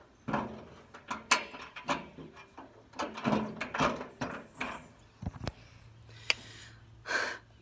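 Corrugated metal storm shutter panel being handled and fitted into place: an irregular run of knocks, clatters and short scrapes, with sharp clicks about a second and a half in and again past six seconds.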